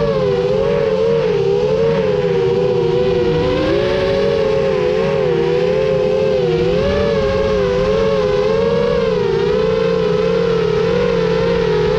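FPV quadcopter's motors and propellers whining, several close tones wavering up and down in pitch as the throttle changes.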